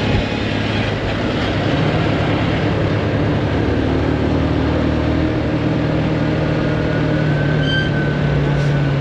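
Motorcycle engine running at a steady cruising speed on the road, its steady hum under heavy wind noise.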